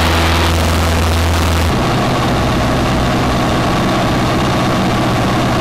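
Cessna 152's four-cylinder Lycoming engine and propeller droning steadily as heard inside the cockpit in flight. A little under two seconds in, the tone of the drone shifts abruptly to a different, steady pitch.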